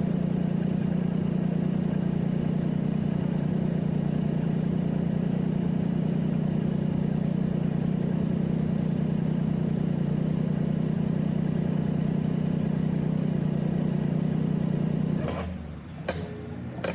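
Motorcycle engine running at a steady, unchanging pitch, cutting off suddenly near the end, followed by a few sharp clicks.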